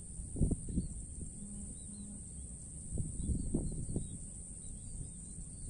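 Open-air ambience: faint bird chirps and a steady high insect buzz over irregular low rumbling thumps, the loudest about half a second in and again around three to four seconds in.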